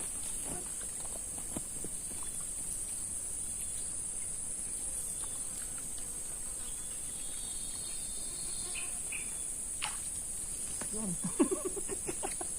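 Insects droning in a steady, high, continuous buzz, with a brief low voice near the end.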